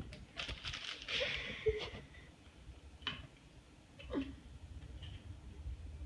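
Faint scraping and squishing of a knife spreading jelly on bread, with a few light clicks of the knife.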